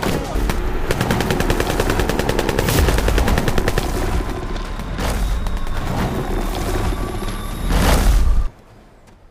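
Dense film action sound effects: a rapid run of sharp cracks over a heavy low rumble, with further loud hits, cutting off abruptly about eight and a half seconds in.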